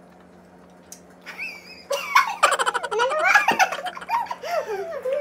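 Women laughing and squealing in high-pitched, rapid bursts that break out about a second in.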